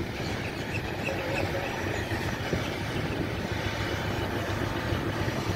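Ford Mustang engine and exhaust running with a low, steady rumble as the car rolls slowly through the lot.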